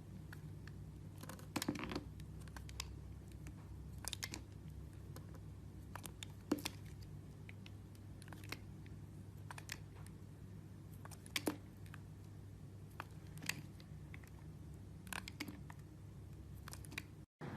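Knife cutting into a bar of soap: irregular crisp clicks and crunches, a few at a time, over a low steady hum. The sound drops out briefly near the end.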